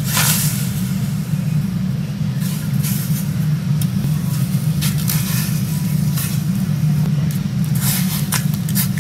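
Steady low rumbling hum of commercial kitchen equipment, with a few brief clicks and clatters as conger eel pieces are handled in a stainless pot of simmering broth.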